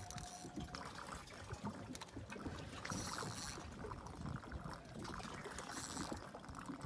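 Water lapping and splashing against the hull of a small drifting boat, uneven and fairly quiet, with scattered faint clicks.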